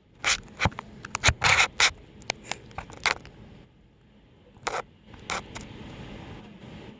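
A quick run of short scraping, rustling noises in the first three seconds, then two more about two seconds later, over a faint steady hiss.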